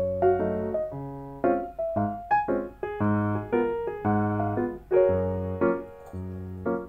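Background piano music: a light, gentle melody of single struck notes over chords, each note fading after it is played.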